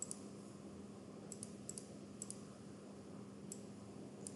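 Computer mouse clicking about six times at irregular intervals, several clicks coming as quick pairs, over a faint steady low hum.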